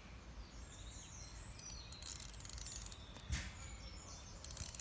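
Clockwork wind-up toy being wound, two bursts of rapid ratcheting clicks, with a single click between them. Birds sing faintly in the background.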